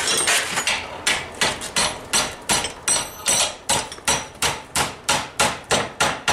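Hand hammer striking a red-hot steel bar clamped in a blacksmith's vise, a steady run of blows about three a second, bending the bar over to a right angle.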